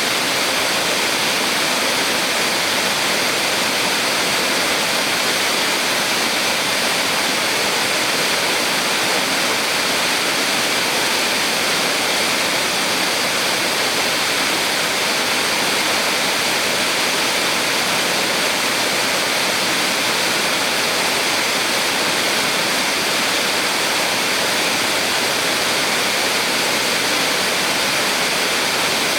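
A small waterfall on a mountain stream: water falling and rushing in a steady, even splashing hiss without a break.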